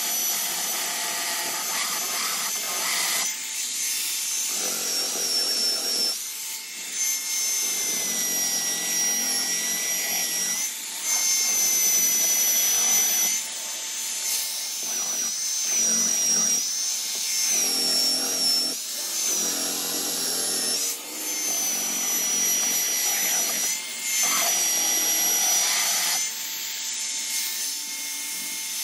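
Electric sander running with a high whine that wavers slightly in pitch, rasping against maple and mahogany in passes that come and go every second or two while the overhanging edges of a glued guitar body are sanded flush.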